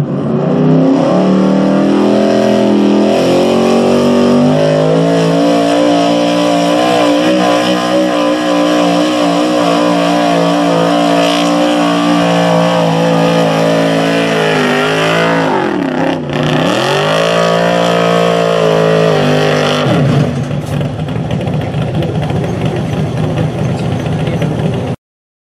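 Modified gasoline engine of a Ford F-series pulling truck held at high revs under full throttle while it drags a weight-transfer sled. The revs climb at the launch, hold high and steady, dip sharply and pick back up about two-thirds of the way through, and near the end the engine note drops away, leaving a steady hiss.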